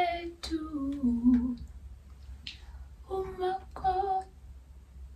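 A woman singing unaccompanied: one phrase of held notes gliding down in pitch, then after a pause of about a second and a half, two short sung notes.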